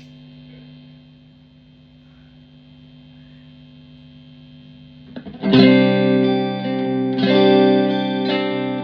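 Fender Blues Junior IV tube amp idling with a low, steady hum, then a Fender Telecaster strummed through it about five seconds in: a chord rings out, followed by two more strums near the end.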